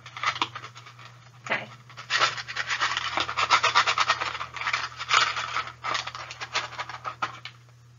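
Staples rattling: a few scattered clicks, then a dense run of small clicks from about two seconds in that stops near the end.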